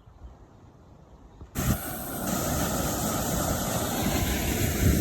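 Irrigation canal water rushing and spraying as a loud, steady hiss that starts abruptly about a second and a half in, after a faint quiet background.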